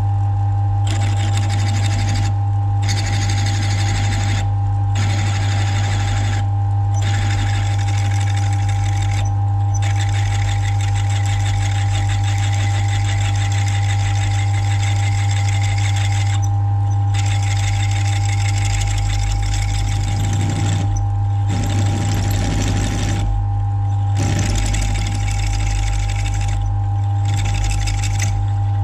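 Mill drill running with a steady hum and whine while a drill bit cuts a hole out to 3/8 inch in a brake ratchet pawl; the rough cutting noise stops briefly every few seconds as the bit is backed out, then resumes.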